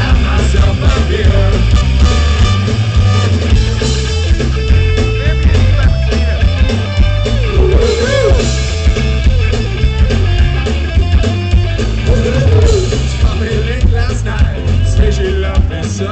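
Live ska-punk band playing loudly: electric guitars, bass and drum kit with melodic lines over a steady beat.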